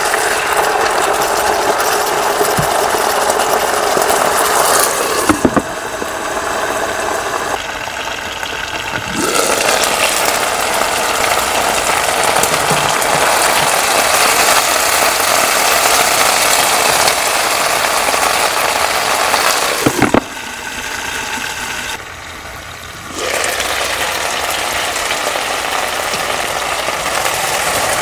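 Chicken and then water spinach sizzling in hot oil in a nonstick pan while a silicone spatula stirs them: a steady frying hiss that drops away twice for a few seconds, about a quarter of the way in and again about three quarters in, with a few sharp clicks.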